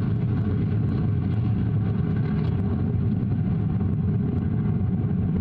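Steady low rumble of the Vega rocket's P80 solid-fuel first stage firing during ascent, with propulsion running nominally.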